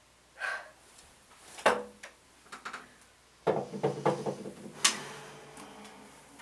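Knocks and rustling as a nylon-string classical guitar is picked up and handled. About halfway through, its strings are bumped and ring briefly, then fade; a sharp click follows a second later.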